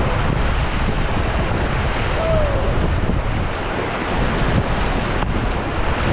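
River water rushing around a raft, mixed with wind buffeting the microphone: a steady noise, heaviest in the low end.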